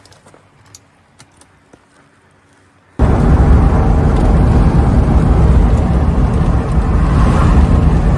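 A few faint clicks, then about three seconds in a sudden, loud, steady rumble and rush of a moving vehicle's road and wind noise, heaviest in the low end.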